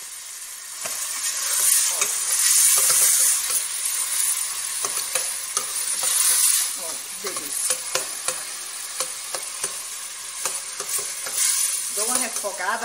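Chopped onion, garlic and green pepper sizzling in hot oil in a stainless steel pot while a metal spoon stirs them, clicking and scraping against the pot. The sizzle swells a second or two in, then settles.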